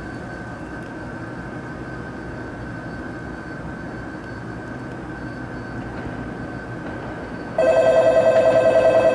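N700 series Shinkansen approaching the platform, a steady low rumble with a faint thin whine. About seven and a half seconds in, a loud two-tone electronic platform bell starts ringing in fast pulses and drowns it out.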